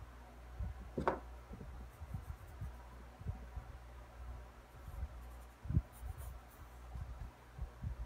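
Pencil scratching on sketchbook paper in short drawing strokes, with one louder, sharper sound about a second in.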